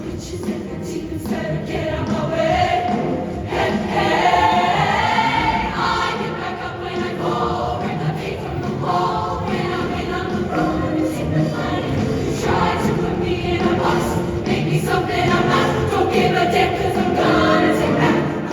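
Show choir singing in chorus with a live backing band.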